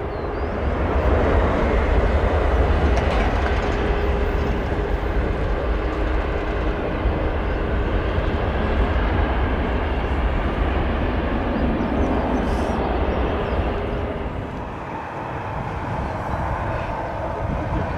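Jet airliner engines running as the aircraft moves on or near the runway: a steady rumbling roar that swells about a second in and eases off near the end.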